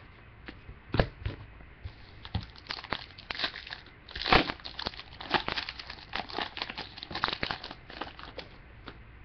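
Foil wrapper of a 2007 Contenders football card pack being torn open and crinkled as the cards are pulled out. The tearing is loudest about four seconds in.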